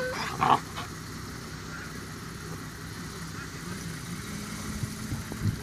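A dog gives one short, sharp yelp about half a second in, over a steady low hum in the background.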